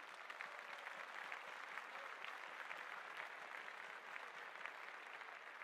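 Faint applause, many hands clapping steadily.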